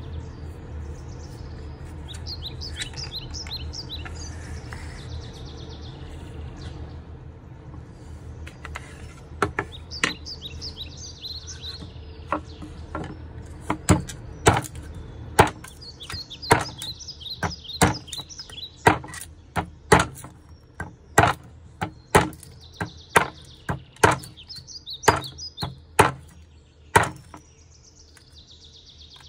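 Birds chirping over a low steady hum, then a hand-forged 5160 spring-steel chef knife chopping into a block of wood: a few strikes about nine seconds in, then sharp chops about once a second, with the birds still chirping between them.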